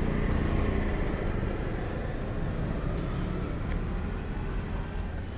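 Street traffic: a steady low rumble of vehicle engines.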